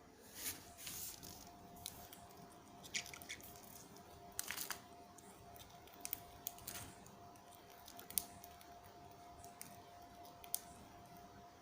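Budgerigar grinding its beak: quiet, irregular scraping clicks and short rasps. Beak grinding is the sign of a content bird settling down to sleep.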